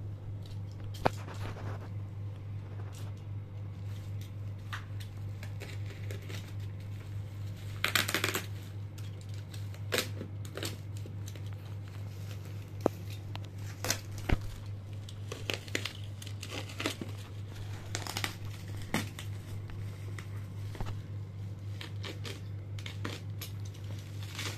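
Plastic mailer wrapping being cut and torn open by hand: irregular crinkling and ripping, loudest about eight seconds in, over a steady low hum.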